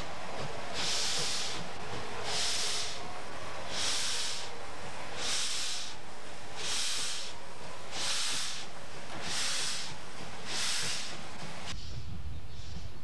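Deutsche Reichsbahn class 50 two-cylinder steam locomotive exhausting in slow, even chuffs, about one every second and a half, each a sharp burst of hissing steam, as it works a train away at low speed under heavy smoke. Near the end the beats turn fainter and quicker over a low rumble.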